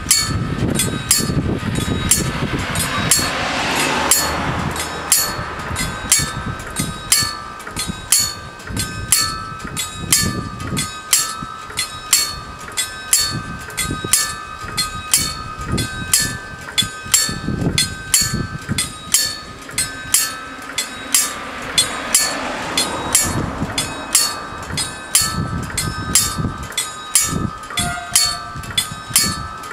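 Level crossing warning bells ringing as the crossing activates for an approaching train. They strike steadily at about two strokes a second, and each stroke rings on.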